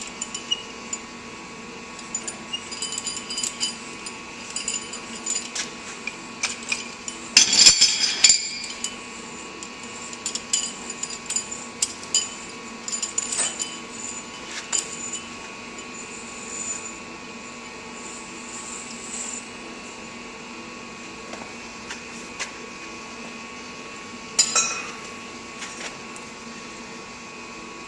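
Metal clinking and scraping as the frost-proof yard hydrant's operating rod is drawn up out of the standpipe, with a louder cluster of clanks about seven seconds in and another near the end, over a steady hum.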